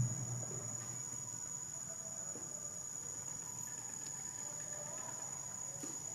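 Insects droning in one steady high-pitched tone, with a brief low thump at the very start.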